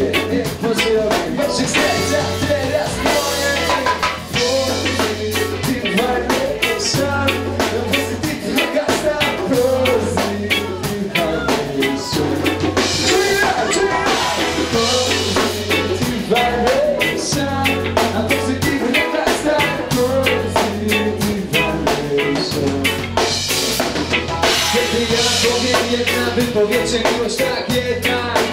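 Live reggae band playing, with a drum kit keeping a steady beat over a repeating bass line, electric guitar and keyboard.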